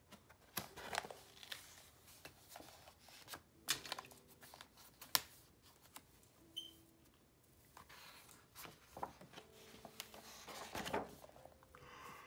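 Sketchbook paper pages being turned and handled by hand: soft rustling broken by irregular sharp flaps and taps.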